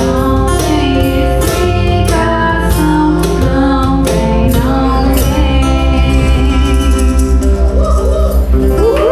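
Song played by a band with singing over instruments and percussion strikes; a pulsing bass line comes in about five seconds in.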